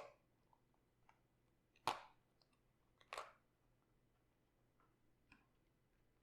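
Raw cabbage crunching: three short, crisp crunches in the first three seconds, then a few fainter ones.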